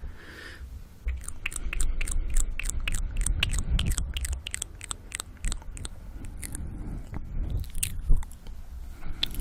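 Close-miked wet mouth sounds: rapid, irregular lip and tongue clicks and smacks. Heavy breathing runs under them on the microphone.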